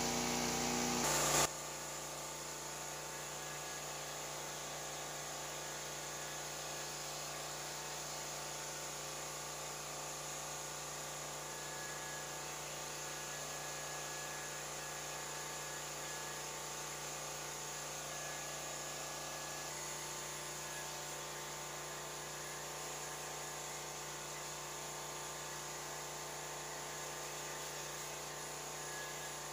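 Hand-held hair dryer running steadily, its motor hum and airflow drying the freshly coated photo emulsion on a screen-printing screen. A brief louder noise comes first, and the steady hum takes over after about a second and a half.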